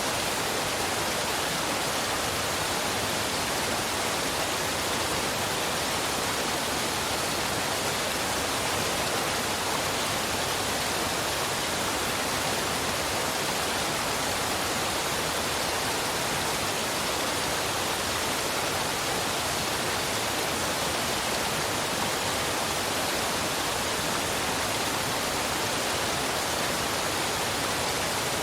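Waterfall and river water falling and running in one steady, unbroken rush of noise, with no music.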